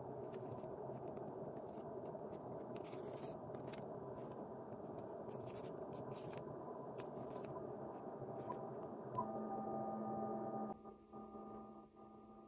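A steady low hum runs under faint scrapes and taps from handling a cardboard iPhone 14 Pro box as it is turned over and opened. The hum drops away sharply a little before the end.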